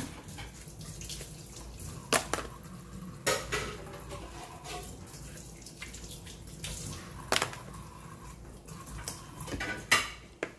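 Kitchen faucet running while crab claws are rinsed and scrubbed under the stream, broken by a few sharp knocks.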